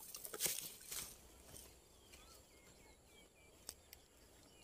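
Brief rustling in the bankside plants during the first second, then quiet with faint, short, high bird chirps and a couple of small clicks.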